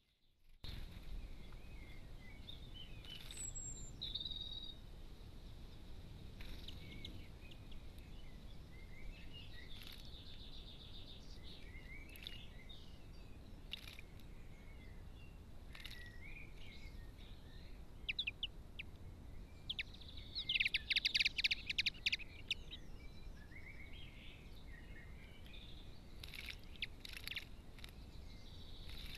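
Common linnets chirping and twittering in short scattered phrases, with brief splashes from a bird bathing in shallow water. The busiest, loudest flurry of splashing comes about twenty seconds in, over a steady low background noise.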